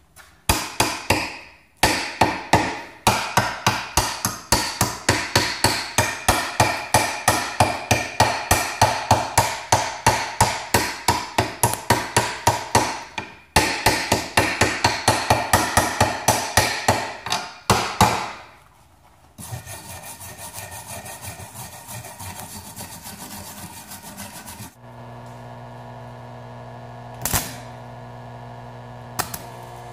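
Rapid sharp hammer strikes on a steel plate, about three or four a second with brief pauses, knocking slag off fresh stick welds. After about 18 seconds the hammering gives way to several seconds of steady scraping. In the last few seconds a small transformer stick welder hums steadily, with a few sharp crackles as the electrode touches the plate.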